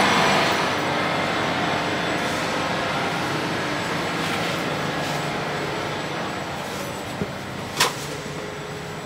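Steady running hum and rush of a stationary Frecciarossa 1000 high-speed train at the platform, slowly growing quieter as the recording moves aboard into the door vestibule. A sharp click about seven seconds in, then a brief hiss just under a second later.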